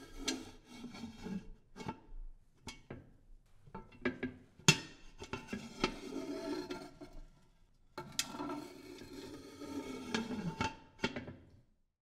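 An antique cast iron kettle being handled: its metal scrapes and rubs in rough stretches, with a few sharp knocks and clanks in between. The loudest knock comes a little under halfway through.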